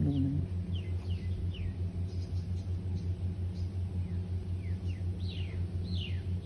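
Motorcycle engine idling with a steady low pulse, with birds calling in short falling chirps scattered throughout.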